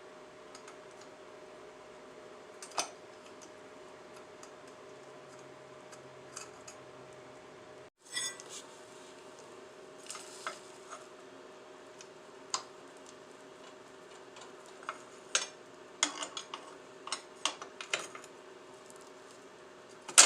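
Metal wrenches and parts clinking and tapping now and then, more often in the second half, over a steady background hum.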